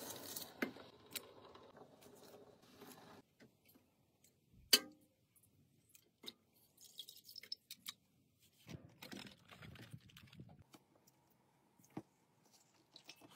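Dry rice poured from a bowl into a pot of broth, a soft hiss lasting about three seconds, then scattered clinks and knocks of a spoon, pot and dishes, with one sharp knock in the middle louder than the rest.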